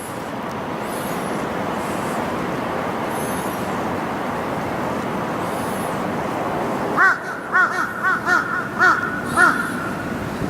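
Steady background noise, then near the end a quick series of about seven short, arched animal calls.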